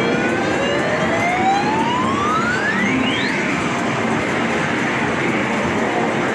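Arcade game-machine noise: a steady din with electronic tones sliding up and down in pitch, the longest rising over about three seconds.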